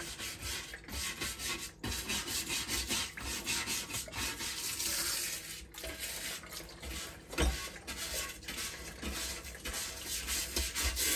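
A plastic dish brush scrubbing the greasy ribbed grill plate of a George Foreman electric grill, quick repeated strokes with water splashing in the sink.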